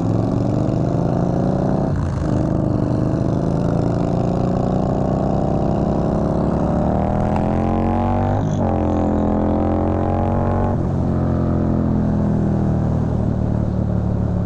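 Cruiser motorcycle engine accelerating hard from a stop, its pitch rising and then dropping at each upshift, about two seconds in and again about eight and a half seconds in, before settling to a steady cruise.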